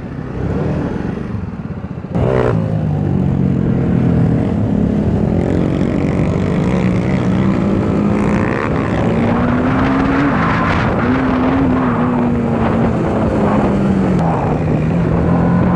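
TVS Apache RR 310's single-cylinder engine running at idle, then pulling away about two seconds in. It carries on under way, its pitch rising and falling with the throttle, with wind noise rushing over it.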